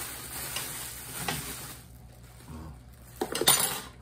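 Brown paper bag rustling and crinkling as it is handled, with a short, loud crackle of paper a little over three seconds in.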